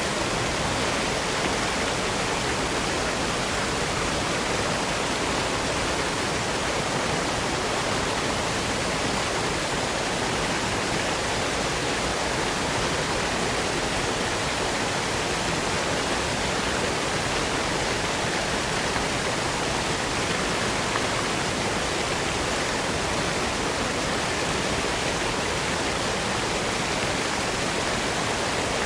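Steady rushing water, an even unbroken noise with no single splashes or drips standing out.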